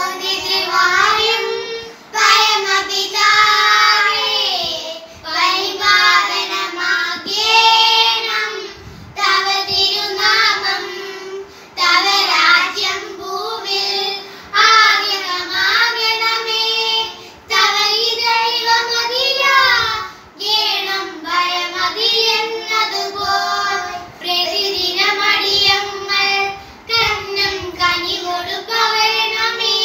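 Three young girls singing a song together in unison, in phrases of a few seconds with short breaks for breath between them.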